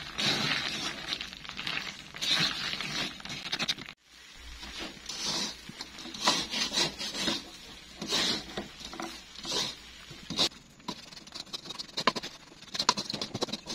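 Wooden spatula stirring and scraping sugar-coated winter melon pieces around a nonstick wok as the syrup dries and crystallizes, in repeated gritty scraping strokes, with a short break about four seconds in.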